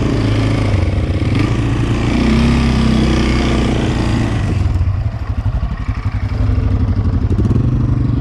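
Aeon Cobra quad engine running under way, steady at first, easing off about five seconds in to an uneven, choppy sound, then pulling steadily again.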